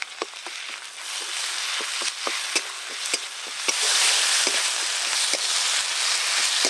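Sliced onions with turmeric and a ginger, cumin and coriander paste sizzling in mustard oil in a metal kadai. They are stirred with a flat metal spatula, which taps and scrapes on the pan many times. The sizzle builds and grows louder about four seconds in.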